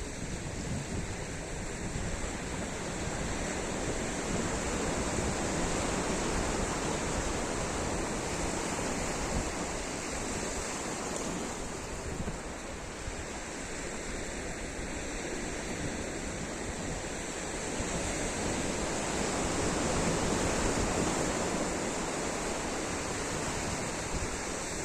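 Sea surf washing onto the beach: a steady rushing noise that swells louder as waves come in, twice, and then eases again.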